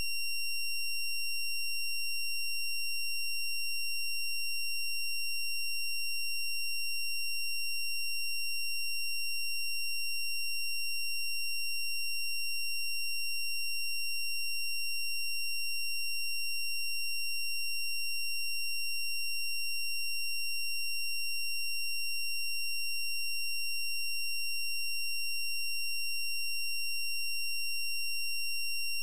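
A steady, high-pitched electronic tone, held without any change, with fainter higher overtones.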